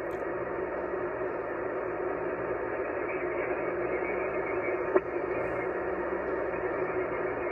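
Yaesu FT-891 transceiver receiving 20-meter SSB, putting out steady band noise and static through its speaker. The hiss is cut off above about 3 kHz by the receive filter, and no clear voice comes through. One sharp click sounds about five seconds in.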